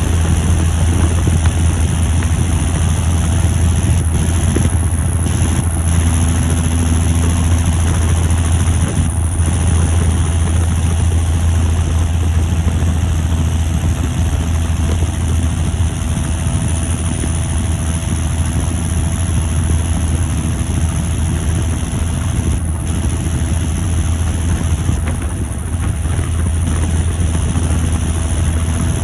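John Deere 7530 Premium tractor's turbocharged six-cylinder diesel running steadily while driving on transport: a deep, even drone with a high turbo whistle that drifts slowly up and down.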